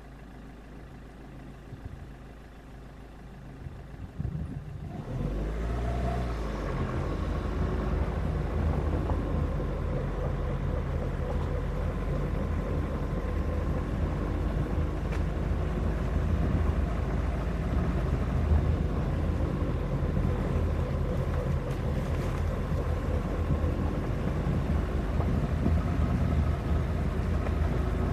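Suzuki Grand Vitara SUV engine idling quietly, then about five seconds in the revs rise as the car gets moving. Steady engine and tyre noise on a gravel road follows, picked up on the car's roof.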